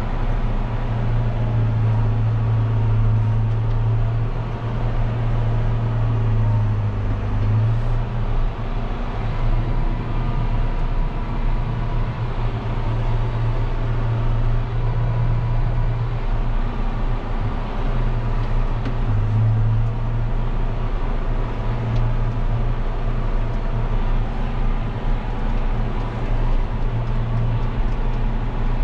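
John Deere 6140M tractor's diesel engine running steadily at around 1750 rpm under load from a pulled field cultivator, heard from inside the cab. Its low hum swells and eases slightly as the load varies.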